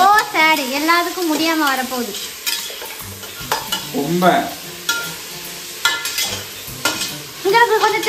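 A ladle stirring and scraping sizzling onions and tomatoes frying in an aluminium pressure-cooker pot. A sung melody sounds over the stirring for the first couple of seconds and again near the end.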